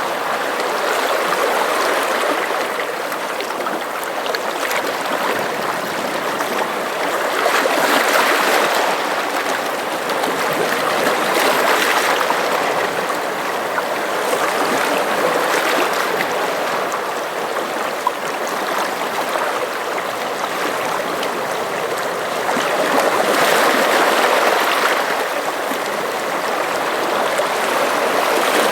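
Sea water washing and splashing in a continuous rush that swells and eases every few seconds as the waves come in.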